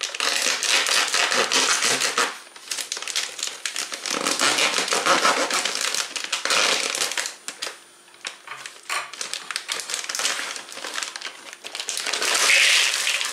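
Plastic bag of frozen mixed vegetables crinkling as it is cut open with scissors and handled. The rustling comes in about three bouts with short pauses between them.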